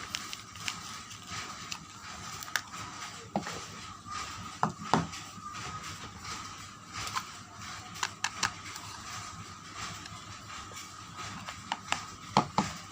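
Scattered sharp clicks and taps from hands handling soap packaging, with a small cluster near the end, over a faint steady high hum.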